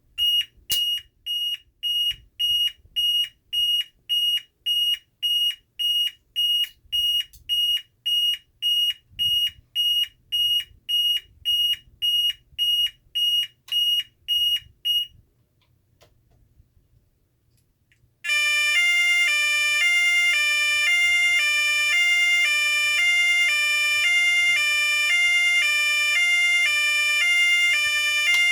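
Federal Signal SLM800R electronic signal sounder testing its tones: first a single high-pitched beep repeating about twice a second, which stops about 15 s in, then after a short gap a loud continuous two-pitch warble, alternating back and forth between a higher and a lower note.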